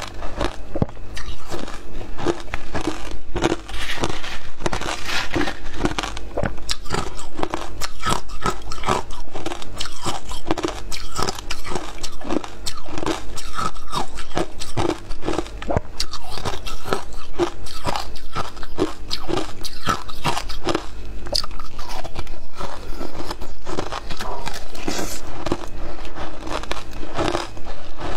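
Crushed matcha ice crunching between the teeth as it is bitten and chewed, many crunches in quick succession.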